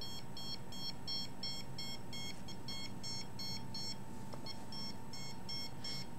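Handheld RF (microwave) meter beeping as it picks up a signal: a rapid train of short, high-pitched beeps, about three a second, with a brief break about four seconds in.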